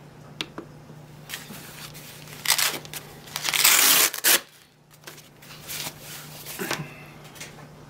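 Two light clicks, likely the monitor's power button being pressed, then several rough ripping, rustling bursts, the loudest about halfway through, typical of the blood pressure cuff's hook-and-loop fastener being pulled open after the measurement.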